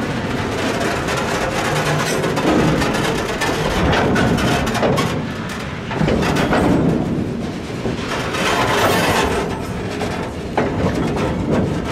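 Train of 900 mm narrow-gauge side-dump hopper wagons rolling past close by. Steady rumbling with the clickety-clack of wheels over rail joints, swelling and fading every couple of seconds.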